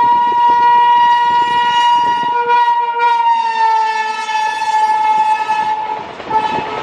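A train's horn sounding one long continuous blast, its pitch dropping a little about three and a half seconds in, over the rumble of train wheels on the rails.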